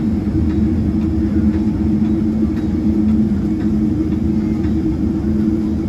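Steady cabin drone of a Boeing 777-300ER with its GE90 engines idling on the ground, heard from inside the cabin: a low rumble under a constant two-note hum.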